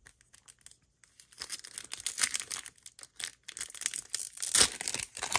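Pokémon card booster pack wrapper being torn open and crinkled: a run of crackling rustles starting about a second in, loudest near the end.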